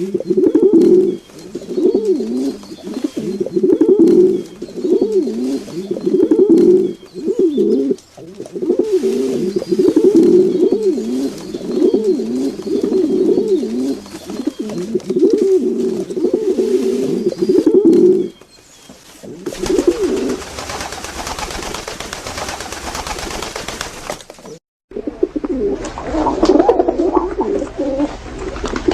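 Pigeons cooing over and over in low, rolling phrases. Later the cooing gives way to a stretch of hissy noise, and after an abrupt cut a different, somewhat higher-pitched animal sound begins.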